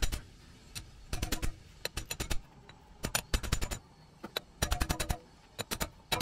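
Hammer blows on a half-inch steel plate, driving a front wheel bearing's inner seal into a steering knuckle through the old bearing's outer race. The blows come in quick bursts of several strikes with short pauses between, and the plate rings briefly after them.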